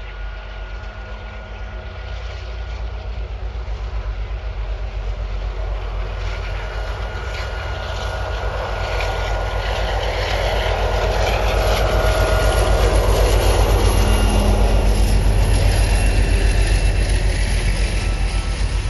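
Ludmilla diesel locomotive approaching and passing with a freight train: a deep pulsing diesel engine rumble with a steady high whine, growing louder to a peak about two thirds through, then the freight wagons rolling by near the end.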